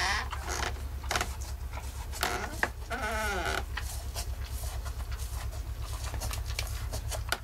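Short call from cattle, the cow or her newborn calf, about three seconds in, rising and then falling in pitch, with a weaker call at the start. Brief rustles of straw come between the calls as the cow licks the calf, over a steady low hum.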